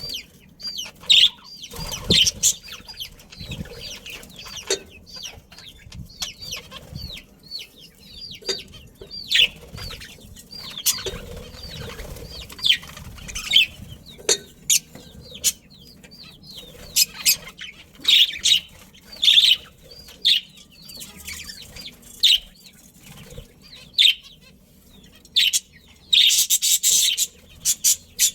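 Budgerigars chirping in many short, quick calls, with now and then louder bursts of fluttering wings, the longest near the end.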